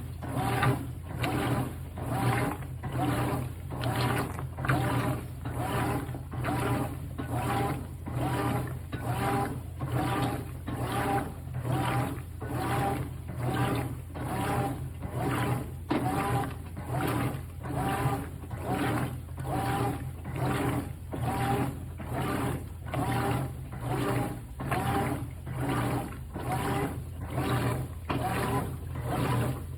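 GE top-load washing machine agitating a full load with a thick comforter: a regular swishing stroke about once a second over a steady motor hum.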